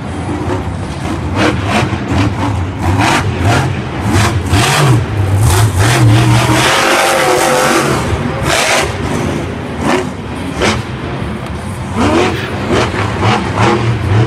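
Monster truck's supercharged V8 engine revving hard over and over, its pitch rising and falling as the throttle is worked through a freestyle run.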